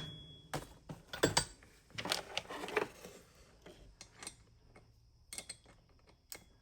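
Metal hand tools clinking, knocking and scraping against a small chainsaw's clutch as it is being loosened, a string of short clicks that is busiest in the first three seconds and sparse after.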